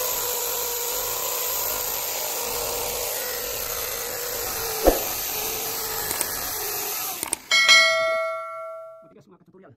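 Power drill running steadily as it bores into a concrete slab ceiling, with a single knock about five seconds in. The drill stops after about seven seconds and a bell chime, a subscribe-button sound effect, rings out and fades.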